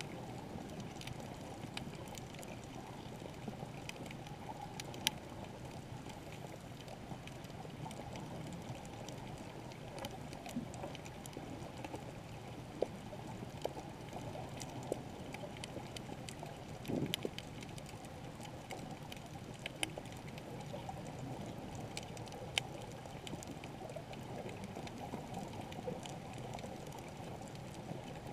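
Underwater ambience over a shallow coral reef, heard through a camera's waterproof housing: a steady muffled rush of water with scattered sharp clicks and a few louder knocks.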